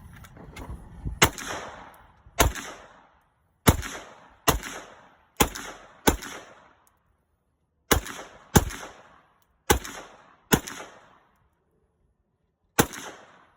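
Gunshots from a competitor shooting a stage: about eleven single shots at an irregular pace of roughly one a second, with a longer pause near the end. Each shot rings out with an echoing tail.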